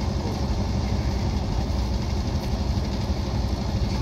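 Diesel engine of a small 0-6-0 shunting locomotive, MD&HB No. 45, running steadily with a low, even drone.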